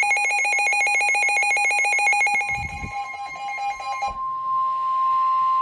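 An electronic weather-radio alert alarm trilling rapidly, like a telephone bell, cuts off about four seconds in. Overlapping it from about three seconds in, NOAA Weather Radio's steady single-pitch warning alarm tone comes in and holds; this tone signals an incoming warning broadcast. A couple of brief low thumps sound in between.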